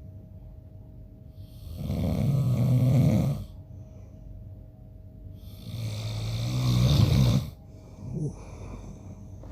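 A man snoring in his sleep: two long snores about four seconds apart, each growing louder for a second or more before breaking off, then a short, fainter sound near the end.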